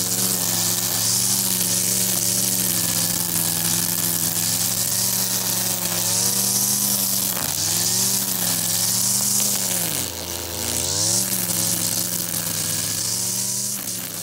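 Brush cutter engine running at high revs while its nylon-line trimmer head cuts grass, with a strong high hiss over the engine note. The revs dip briefly about seven seconds in, fall away about ten seconds in, and climb back a second later.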